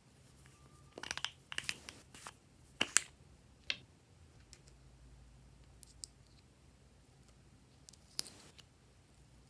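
Glossy slime being worked by hand: a run of short, sharp sticky crackles and pops in the first few seconds, and one more near the end.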